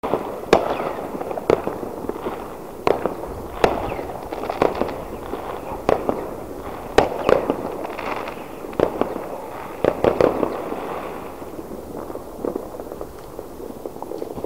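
Fireworks going off: a string of sharp bangs at irregular intervals, with crackling between them, thinning out over the last few seconds.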